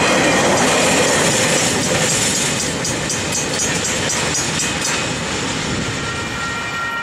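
Freight train's container-laden wagons rolling past on the rails, wheels clicking over the joints, the noise fading as the end of the train draws away.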